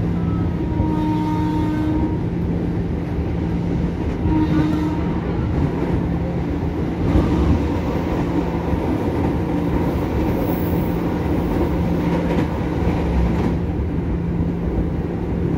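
Cabin sound of a KRL commuter electric train (ex-JR 205 series) running along the line: a steady hum over the rumble of wheels on rail. About seven seconds in, a train passing close on the adjacent track adds a rushing noise for some six seconds, then drops away.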